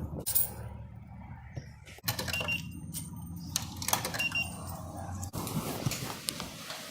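Handling clicks and knocks with two short, high electronic beeps, about two seconds apart.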